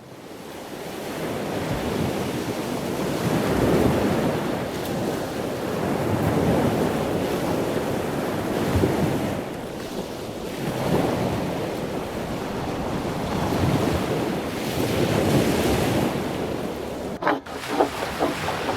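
Ocean surf breaking and washing, swelling and ebbing every few seconds, with wind on the microphone. Near the end the sound breaks off briefly and a few short knocks follow.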